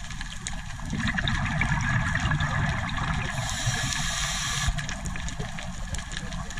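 Steady rushing, water-like noise that grows a little louder about a second in.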